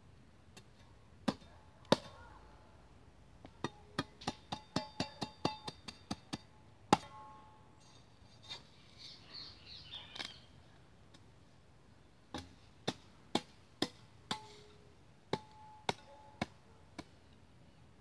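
A hand tool chopping at hard soil and a root in repeated sharp strikes, some with a brief ringing tone. The strikes come in irregular runs, a few a second at the fastest.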